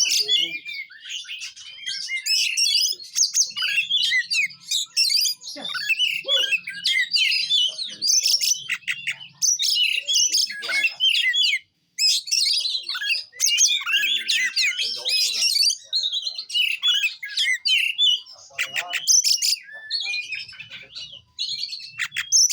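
Oriental magpie-robin singing a long, rapid, varied song of chirps, trills and whistles, with a brief break about halfway through.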